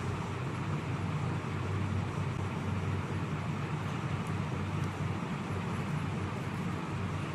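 Steady low mechanical hum under a constant background noise, with no parrot calls.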